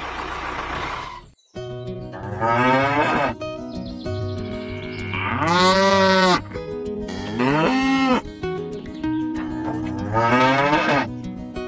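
Cow mooing four times, each a long call that rises and falls in pitch, over steady background music. A noisy sound in the first second cuts off abruptly before the moos begin.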